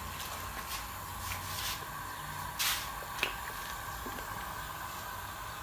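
Dye liquid splashing and dripping as wet tie-dyed cloth is lifted from and dipped back into a steel pot of dye, a few short splashes with the loudest about halfway through, over a steady hum.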